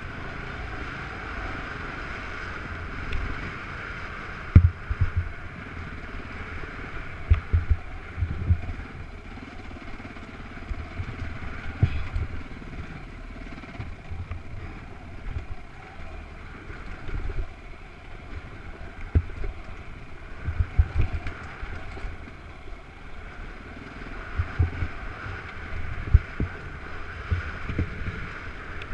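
Off-road vehicle's engine running steadily as it rides a rough dirt trail, heard on an onboard camera with wind buffeting the microphone and repeated low thuds from bumps and rocks.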